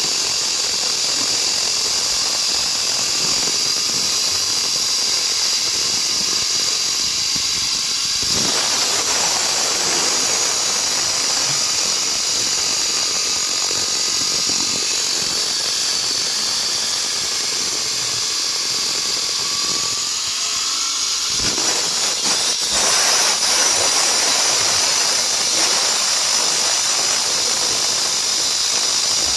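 Concrete-cutting saw cutting through a reinforced concrete slab: a loud, steady high-pitched whine and hiss, which shifts briefly about eight seconds in and again a little past twenty seconds.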